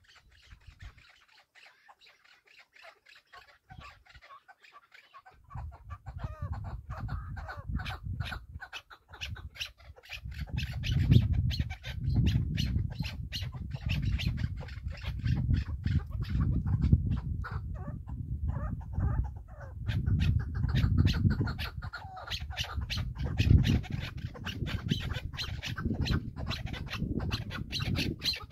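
A ground bird clucking in quick runs of sharp notes, over a heavy low rumble that starts about five seconds in and grows louder.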